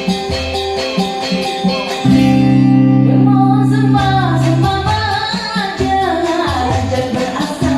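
Live band music: a rhythmic accompaniment, then a loud held low chord about two seconds in, with a singer's voice coming in partway through.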